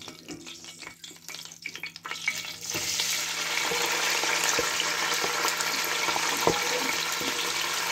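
Pre-boiled chicken frying in very hot oil in a pan. After about two and a half seconds of faint crackling and a few light knocks, a loud, steady sizzle sets in as the chicken meets the oil on a high flame.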